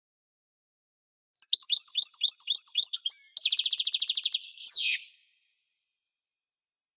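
European goldfinch singing one phrase, starting about a second and a half in: a quick run of twittering notes, then a fast buzzy trill, then a single falling note to close.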